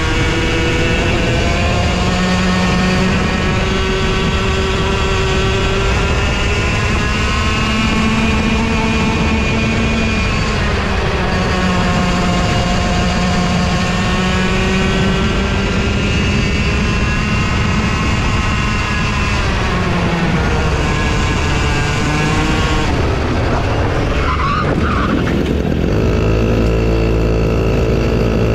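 A racing kart's engine heard from onboard at full race pace, its pitch climbing and falling over and over as it accelerates and eases off. Near the end it drops to a lower, steadier note.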